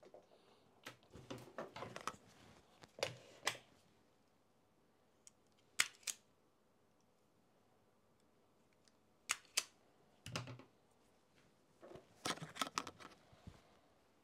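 Small rustles and knocks of wire being handled on a desk, then sharp clicks in pairs, twice, as a self-adjusting automatic wire stripper snaps shut and springs open on the wire ends, followed by more handling of tools.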